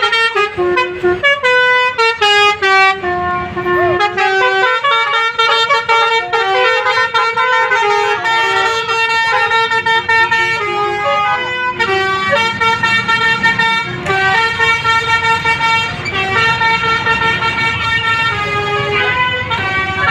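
Bus telolet horn, the multi-tone electric air horn fitted to Indonesian buses, playing rapid melodic runs of short, stepping notes over and over, with a brief break about twelve seconds in.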